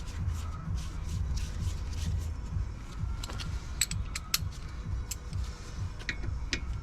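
Light metallic clinks and knocks of tools and parts being handled, several sharp ones about four seconds in and a few more near the end.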